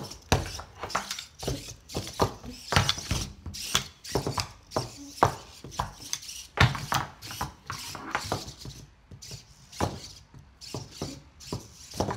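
Homemade robot dog's four servo-driven metal legs stomping and clattering on a tabletop, an irregular run of sharp knocks, about two or three a second.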